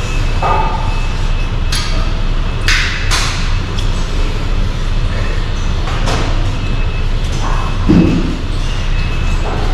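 Gym weights clanking: several short metal clanks and thuds, the strongest about eight seconds in, over a steady low rumble.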